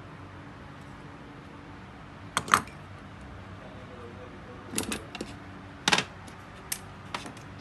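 Small metal parts clicking and knocking as they are handled and fitted by hand onto the rear plate of a Toyota Camry alternator. There are a few sharp clicks, the loudest a double knock about two and a half seconds in, then a cluster around five to six seconds, over a low steady hum.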